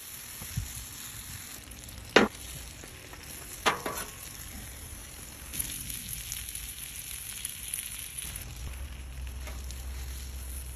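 A sandwich frying on a flat-top griddle, with a steady sizzle throughout. Two sharp knocks come about two and four seconds in.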